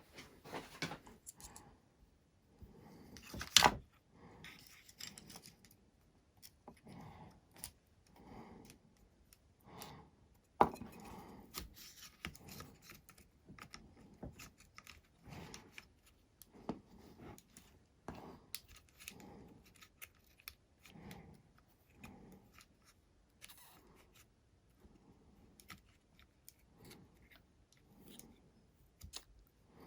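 Small screws being driven by hand into a hexacopter's leg fittings: a run of small clicks, ticks and short scrapes of tool and parts, with two sharper knocks about 3.5 and 10.5 seconds in.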